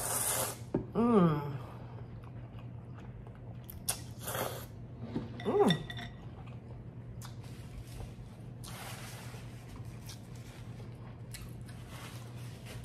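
A person slurping instant ramen noodles, with a loud slurp at the start, then chewing with two short hums of enjoyment and more slurping bursts later. A steady low hum sits underneath.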